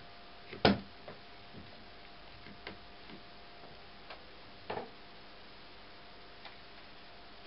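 Plastic one-handed quick clamps being squeezed tight and handled: a sharp click under a second in, then scattered lighter clicks and a short clatter near the middle.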